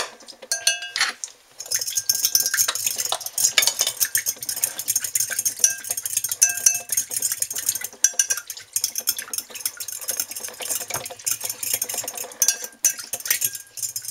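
A utensil briskly stirring a liquid marinade of orange juice and olive oil in a bowl, a rapid run of clinks and scrapes against the bowl that starts about a second and a half in after a few separate clinks.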